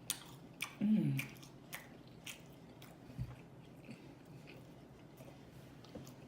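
Close-miked open-mouth chewing of fried food, with wet smacking and frequent sharp lip and tongue clicks. About a second in, a short low vocal sound falls in pitch, the loudest moment.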